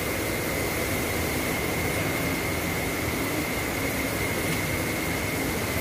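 Steady machine drone with a constant high-pitched whine running through it.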